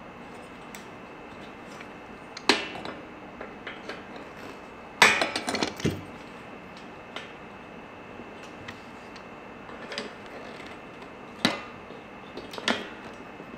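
Small metal parts and pliers clicking and clinking against the hand truck's axle and wheel hub as a washer and cotter pin are fitted: a few separate sharp clicks, with a quick cluster about five seconds in and more near the end.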